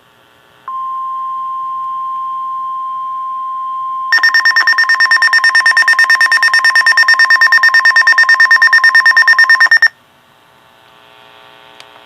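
Weather radio alert: the NOAA Weather Radio 1050 Hz warning alarm tone sounds as one steady pitch from about a second in, and a few seconds later a weather radio's own alert beeper joins with loud rapid beeping, about eight beeps a second. Both stop together near ten seconds, a radio being triggered by a warning broadcast.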